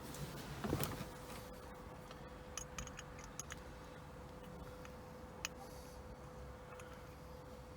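Small clicks and a brief clatter of hand work as screws are fitted into a steering wheel hub adapter, with a sharp cluster of clicks about a second in and a single click past the middle. A steady faint hum runs underneath.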